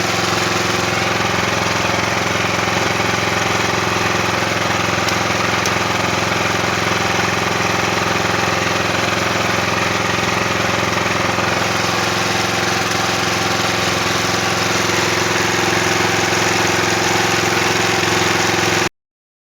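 A small engine running steadily at constant speed, an even hum with no change in pitch; it cuts off suddenly near the end.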